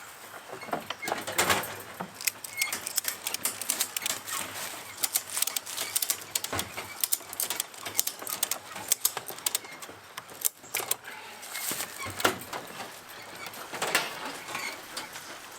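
Rapid, irregular clicking and rattling as something is worked tight by hand.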